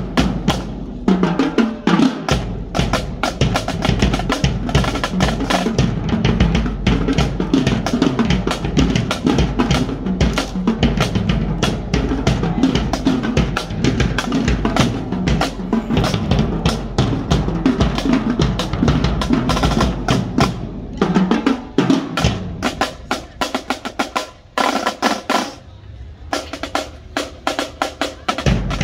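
Drumline playing Pearl marching snare drums with tenor drums: a fast, dense cadence of stick strokes and rolls. About three quarters of the way through it thins to sparse, quieter hits for several seconds, then full playing comes back at the very end.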